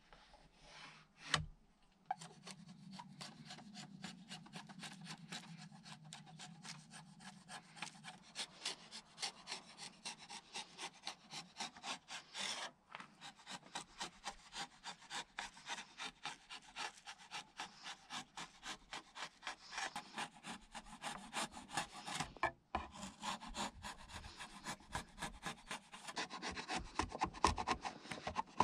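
A wood chisel pares along the edge of a wooden trim strip in short scraping strokes, two or three a second, to thin it down. There is a single knock about a second in.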